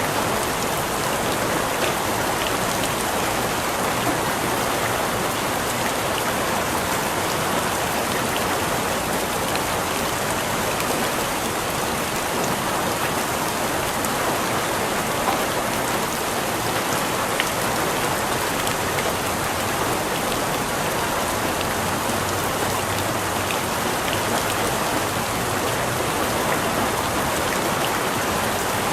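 Steady rain falling on surfaces, an even hiss with scattered individual drop ticks.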